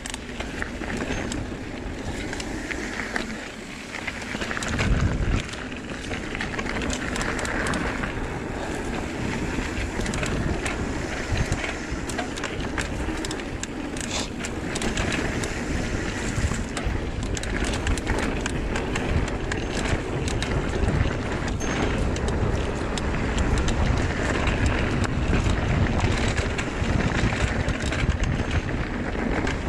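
Trek Fuel EX 7 mountain bike riding fast downhill on dirt singletrack: tyres running over dirt and rock, the bike rattling in many small knocks, and wind buffeting the microphone. A heavy thump comes about five seconds in.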